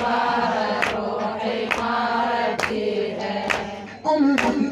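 Voices chanting a Shia latmiya lament refrain together, with a sharp slap about once a second keeping the beat, in the manner of ritual chest-beating (latm). The chanting dips briefly near the end before a voice comes back in.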